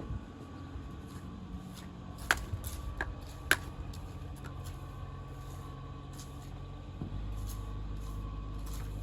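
A steady low mechanical hum with a faint steady tone, broken by a few sharp clicks or knocks, two of them louder, a couple of seconds in and again a second later. The low hum grows louder about seven seconds in.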